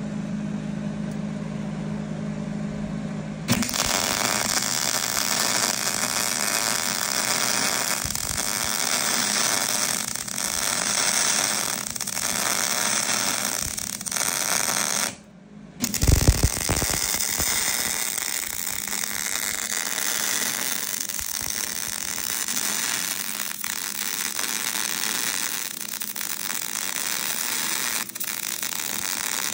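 MIG arc from a Millermatic 185 wire-feed welder crackling as it lays weld on a preheated cast-iron Dana 60 axle housing. A low steady hum comes first; the arc strikes about three and a half seconds in, stops for about a second around halfway, then starts again and keeps crackling.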